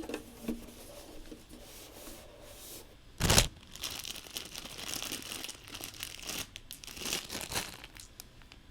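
Crinkling and rustling, with one sharp knock about three seconds in.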